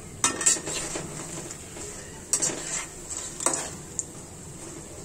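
A utensil stirring and scraping in a pan of nimki frying in oil. It comes in three short bouts of clatter and ends with a single click, over the steady sizzle of the oil.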